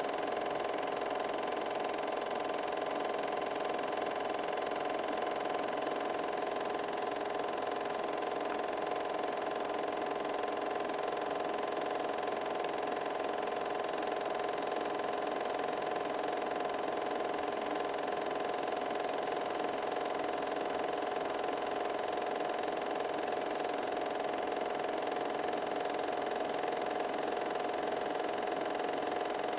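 Film projector running, a steady mechanical whir with a constant hum that does not change.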